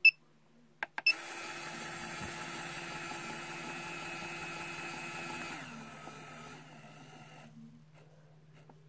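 Lyman Gen 6 electronic powder dispenser: two keypad beeps, then its motor whirs steadily as it throws ball powder into the pan. A little over halfway through it drops to a slower, quieter speed for the final trickle, then stops about two seconds later.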